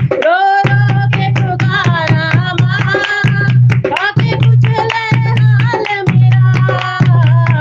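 Music: a melody with gliding notes over a deep bass and a steady beat.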